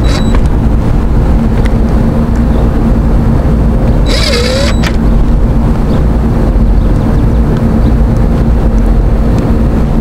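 Outdoor HVAC unit running close up: a loud, steady machine hum with a heavy low rumble. A brief high chirp with a sliding pitch sounds about four seconds in.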